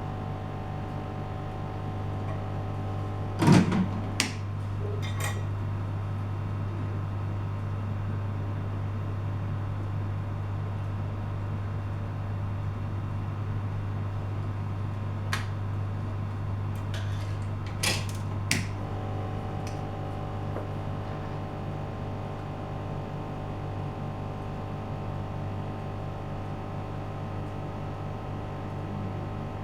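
A steady low machine hum made of several tones, with a few sharp clicks and knocks: a cluster about three to five seconds in and another around fifteen to eighteen seconds in.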